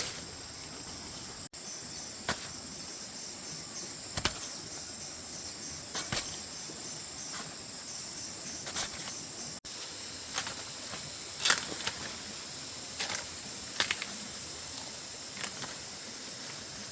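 Insects shrilling steadily in a high, pulsing chorus, with a dozen or so irregular short snaps and rustles over it.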